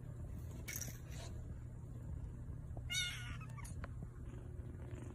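Young tabby kitten mewing: a faint high squeak about a second in, then one short, high-pitched mew about three seconds in, over a low steady hum.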